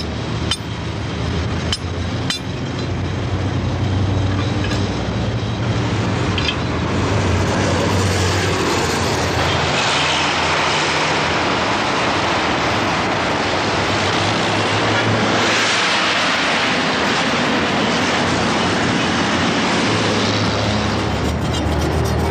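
Dense road traffic of buses and cars: engines running with a low, steady hum under a constant wash of road noise, which grows a little louder over the first few seconds. A few sharp clicks sound early on.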